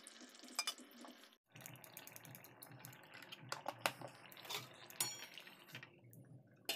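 Curry gravy in a metal pot being stirred with a metal ladle: faint liquid sloshing and bubbling, with scattered sharp clicks of the ladle against the pot, the loudest near the end.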